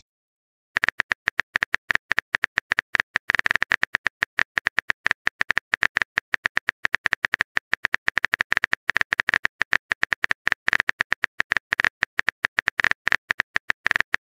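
Phone keyboard key-click sound effect, rapid uneven taps as a text message is typed out, starting about a second in.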